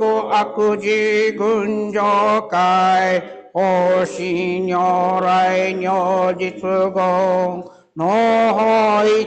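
Buddhist sutra chanting: long held notes on a nearly steady pitch, with short pauses for breath about three and a half and eight seconds in.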